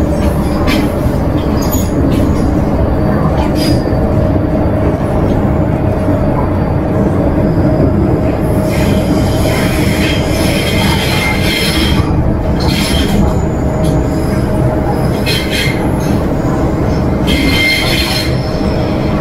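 MTR M-Train electric metro train running underground, heard from inside the carriage: a loud, steady rumble of wheels on rail with a steady hum. From about nine seconds in, short high-pitched squeals from the running gear come and go several times.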